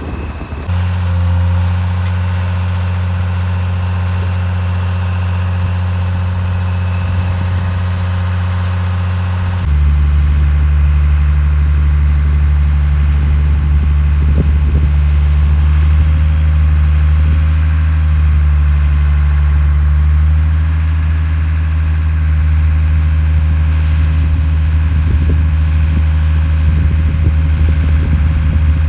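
Concrete mixer truck's engine running steadily with a deep, even hum. About ten seconds in the tone drops slightly and gets louder, then holds steady again.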